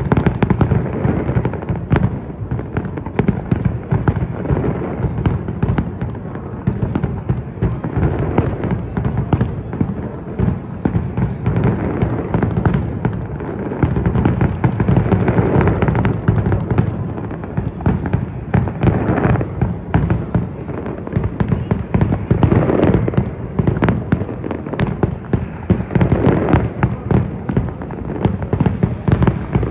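Fireworks display going off in a dense, continuous barrage of bangs and crackles over a deep rumble.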